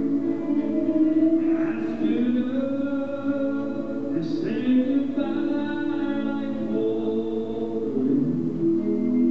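Live country music: a man singing with a band, pedal steel guitar among the instruments, in long held, gliding notes.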